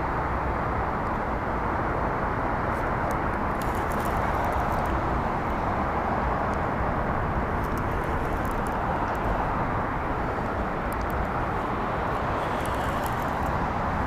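Steady rumble of city road traffic, an even noise without pauses, with a few faint light clicks now and then.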